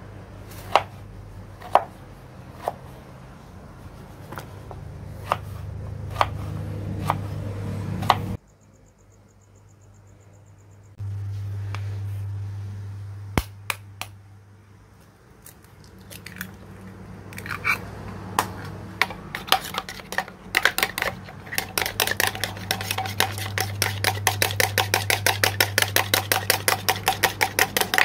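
Knife cutting through peeled eggplant onto a wooden cutting board, single cuts about one a second, over a steady low hum. About 13 seconds in an egg is cracked with a sharp tap on a plastic jug. In the second half the egg is beaten in the plastic jug: fast, even tapping that builds to about six strokes a second.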